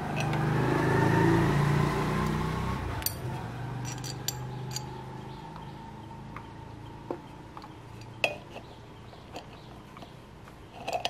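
Light clinks and clicks of small metal parts, a bolt and rubber anti-vibration mount, being handled and fitted to the steel frame of a small water pump. Over the first few seconds a low drone with a rising whine swells, peaks at about a second in and fades away.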